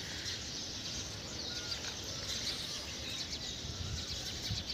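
Outdoor rural ambience: a steady background hiss with a few faint bird chirps.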